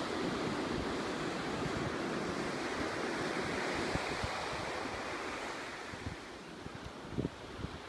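Sea surf washing onto a sandy beach: a steady rush that swells in the middle and eases off about six seconds in. Near the end, wind buffets the microphone.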